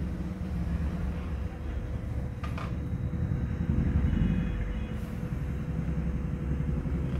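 Imitation of a JCB digger at work: a steady low engine-like rumble that swells a little about halfway through.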